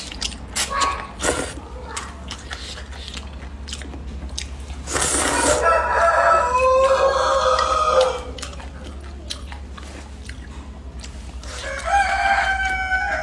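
A rooster crows for about three seconds, beginning about five seconds in, and crows again near the end. Slurping and chewing of noodles make short clicky sounds in the first couple of seconds.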